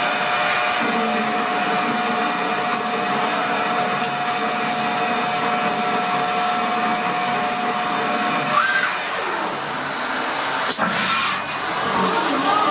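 CNC turn-mill polygon lathe running, a steady machine noise with a constant whine. About two-thirds of the way in, the pitch glides up and then down, and a sharp click follows a couple of seconds later.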